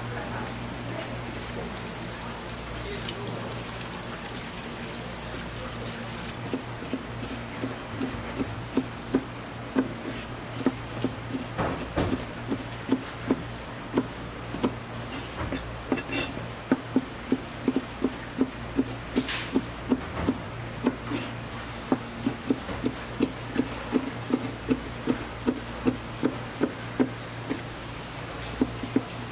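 Kitchen knife slicing gizzard shad into thin strips on a plastic cutting board. Each stroke ends in a sharp tap on the board, about two a second, starting about six seconds in, over a steady low hum.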